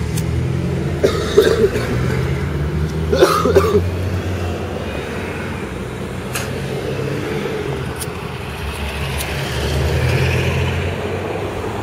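Steady low rumble of a running car, with two short throaty coughing sounds about one and three seconds in and a few faint clicks.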